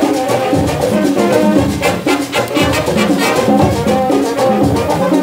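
Marching band playing a Latin-style tune, its brass section carrying the melody over steady drum beats.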